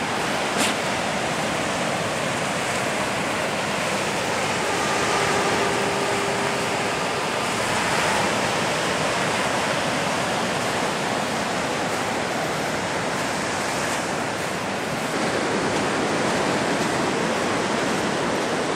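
Ocean surf breaking on a sandy beach: a steady, even rush of waves with no let-up.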